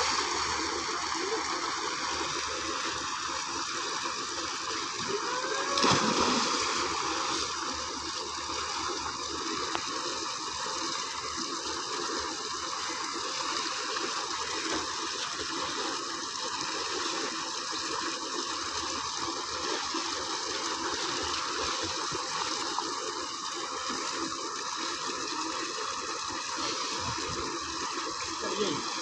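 Tubewell outlet pipe gushing a steady jet of water into a concrete tank, a continuous rushing and churning, with splashing from swimmers in the water. A short louder sound stands out about six seconds in.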